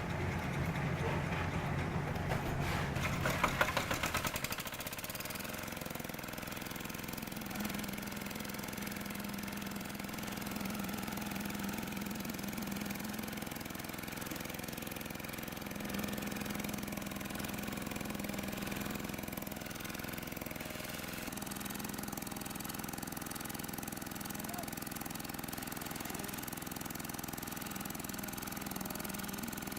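An engine running steadily. It is louder and rougher for the first few seconds, with a clatter about three to four seconds in, then settles to an even hum.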